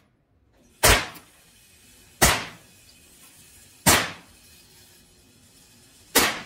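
Rifle shots from an AR-style rifle fired one at a time, four shots spaced about one and a half to two seconds apart. Each is a sharp crack with a short echo off the walls of an indoor range.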